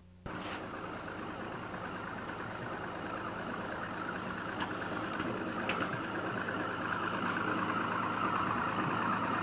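Truck engine idling steadily, a low even hum. It drops out suddenly for a moment right at the start and grows slowly louder toward the end.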